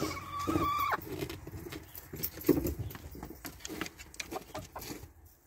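Footsteps crunching through snow with scattered knocks and rustles, fading toward the end. Over the first second a steady high call or creak is held, then cuts off abruptly.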